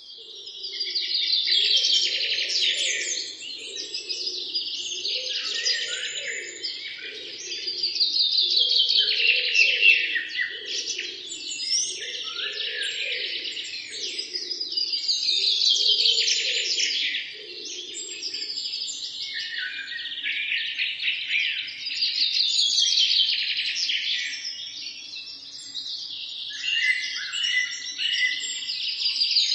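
Birds chirping and trilling in a dense chorus, swelling and easing in waves that come back about every seven seconds.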